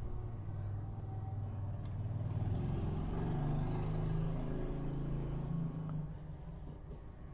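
Low engine rumble of a passing road vehicle, swelling toward the middle and fading away after about six seconds.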